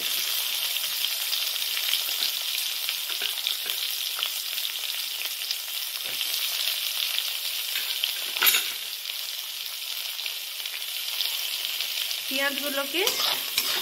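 Sliced onions frying in hot oil in a kadai, a steady sizzle. One sharp knock comes about eight and a half seconds in.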